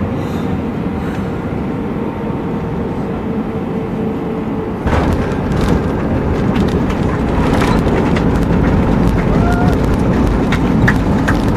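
Airbus A319 cabin noise: a steady jet hum with a faint held tone, then about five seconds in a sudden jump to a louder, deeper rumble with rattling and clicks as the airliner touches down and rolls out on the runway.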